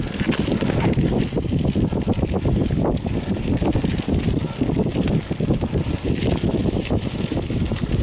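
Wind buffeting the microphone while a mountain bike rides over a bumpy dirt trail, with constant rattling knocks from the bike jolting over the ground.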